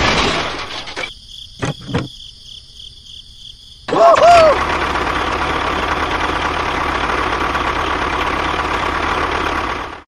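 Tractor engine sound that cuts out for about three seconds after the first second. In the gap there is a high, evenly repeating chirp and two knocks. About four seconds in the engine comes back with a short wavering tone and then runs steadily.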